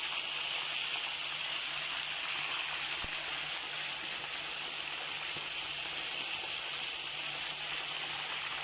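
Tuna pieces deep-frying in a pan of hot oil: a steady, even sizzle.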